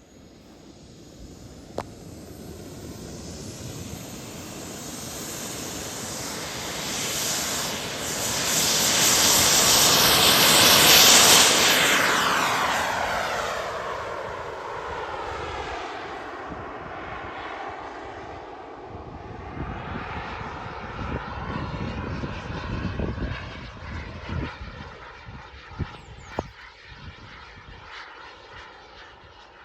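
RC model jet's turbine engine whining on take-off. It grows louder over about ten seconds, peaks as the jet passes close, its pitch dropping as it goes by, then fades as it flies away.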